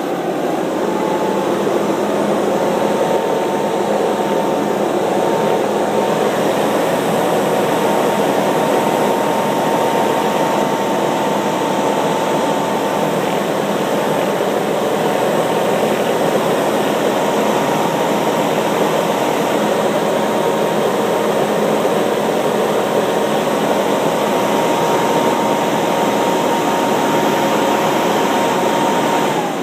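Leaf blower running steadily at full speed, a loud rush of air with a constant whine; near the end it is throttled back and the whine drops in pitch.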